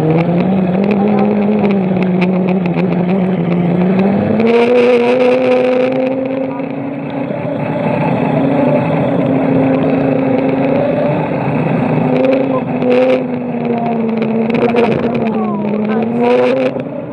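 Electric scooter motor whining as it is ridden, its pitch rising and falling gently with speed over a rushing noise.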